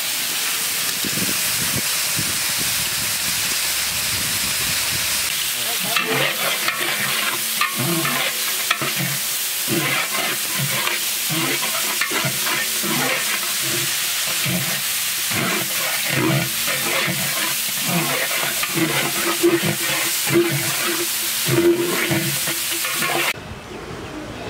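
Shallots sizzling in hot oil in a large metal cooking pot, and from about six seconds in a long metal ladle scraping and stirring them against the pot in repeated strokes, with a ringing note from the pot. The sound drops away suddenly near the end.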